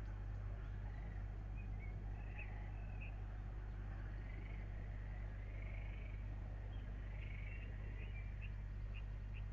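Short, scattered bird chirps over a steady low hum, growing busier near the end.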